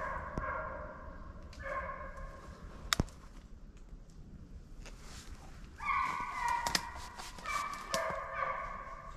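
Hunting hounds baying in repeated drawn-out bouts while running a coyote's trail toward the hunter. A single sharp click comes about three seconds in.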